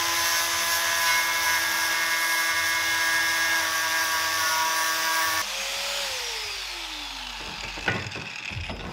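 Corded angle grinder cutting into a rounded-off steel brake disc retaining screw, a steady high whine. After about five seconds it stops cutting and the whine falls in pitch as the disc spins down, followed by a few knocks near the end.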